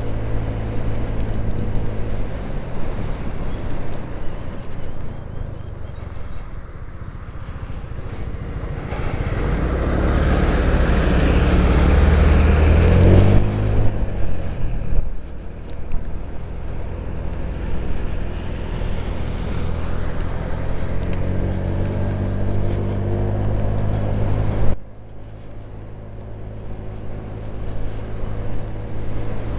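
Honda PCX125 scooter's single-cylinder four-stroke engine running under way, heard from inside a full-face helmet along with wind and tyre noise. About nine to thirteen seconds in it grows louder and rougher with a rising engine note, close behind a lorry, and about twenty-five seconds in the level drops suddenly.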